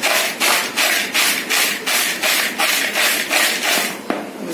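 Dry, crisp chivda mix of roasted flattened rice, boondi and peanuts being tossed and stirred in a plastic bowl: a rhythmic rustling scrape at about four strokes a second. It stops about four seconds in, followed by a single light click.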